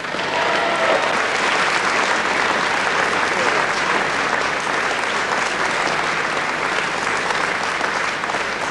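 A large audience applauding. The applause breaks out suddenly and holds steady.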